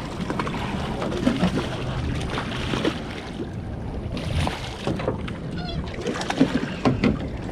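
Small fishing boat on the water: a steady low rumble with water splashing, and faint voices in the background.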